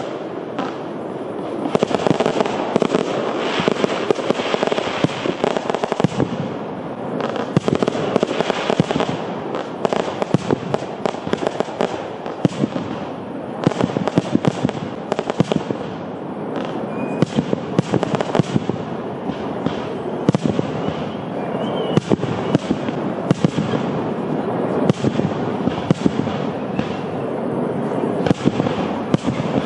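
Fireworks display: aerial shells launching and bursting in rapid, unbroken succession, a dense run of bangs and crackling.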